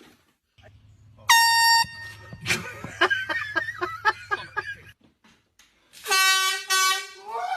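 Air horn blasts: one loud, high blast about a second in, and two short, lower-pitched blasts near the end, with a jumble of other short sounds in between.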